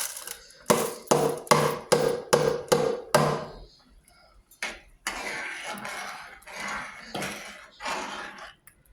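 Kitchen utensil knocking on a cooking pot about six times in quick succession, each knock ringing briefly, as rice is added. This is followed by a longer stretch of scraping and stirring in the pot.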